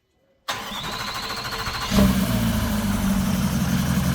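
Range Rover 4.4 TDV8 diesel V8 cranked on the starter with a thin whine for about a second and a half, then catching about two seconds in and settling into a steady idle. This is the engine being started after a complete overhaul.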